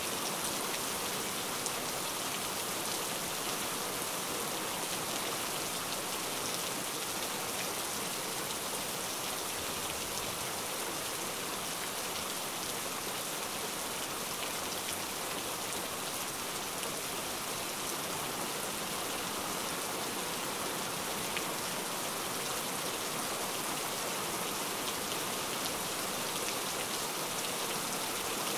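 Steady rain: an even hiss with a fine patter of drops throughout.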